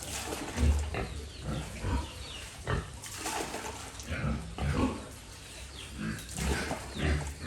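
Pigs grunting and calling in short, irregular bursts.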